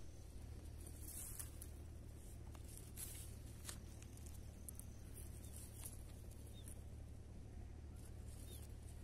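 Faint outdoor ambience: a low steady rumble with scattered soft ticks and rustles, and a couple of faint high chirps.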